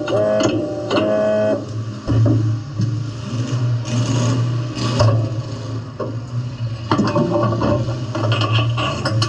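Demolition derby car's engine running steadily inside the stripped-out cabin. A horn honks in repeated short blasts for the first second and a half, and a few sharp knocks come about two, five and seven seconds in.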